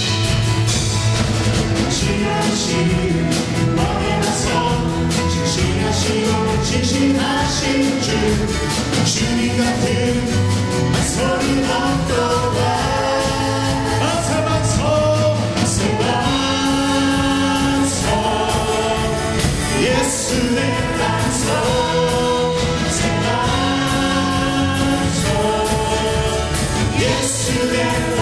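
Live contemporary worship music: a praise team of several vocalists singing a gospel song together into microphones over band accompaniment with a steady beat.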